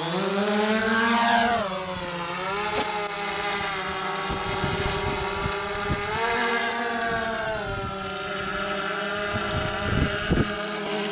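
DJI Phantom quadcopter's motors and propellers spinning up for takeoff: a buzzing whine that rises in pitch over the first second or so, wavers up and down, then holds steady as the drone climbs away.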